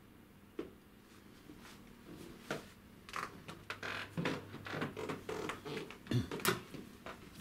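Scattered clicks and knocks of handling, getting busier about three seconds in, then an interior door pushed open by its handle, with two sharp knocks near the end.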